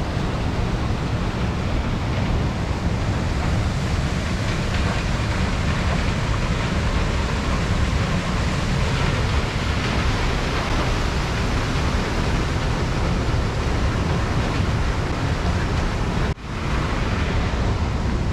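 Steady rushing noise of moving river water mixed with wind buffeting the microphone. The sound briefly drops out about sixteen seconds in.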